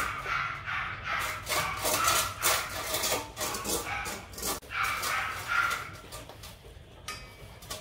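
Several dogs crunching dry kibble from stainless steel bowls: a dense, irregular run of crisp crunches and clinks, a few per second, thinning out near the end.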